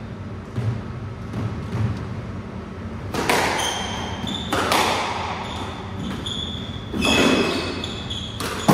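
Squash rally on a wooden-floored court: a few soft thumps, then the ball cracks off rackets and walls four times with a hall-like echo, amid short high squeaks of shoes on the wooden floor.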